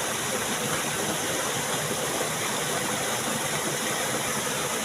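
Steady rush of flowing stream water, an even unbroken noise.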